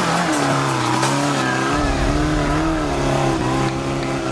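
Off-road 4x4 buggy's engine working hard as it climbs a muddy slope, its pitch wavering up and down with the throttle.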